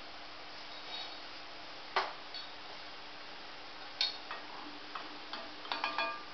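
Steel slotted spoon clinking against a stainless steel pot as fried gulab jamuns are tipped into sugar syrup: two sharp clinks about two and four seconds in, then a run of lighter, ringing metal taps near the end, over a faint steady hiss.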